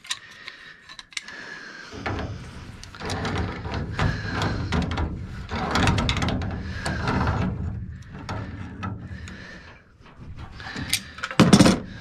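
Pipe wrenches turning threaded black gas pipe at the furnace's gas valve: metal scraping and clicking in spurts as the joint is worked, with a loud clank near the end.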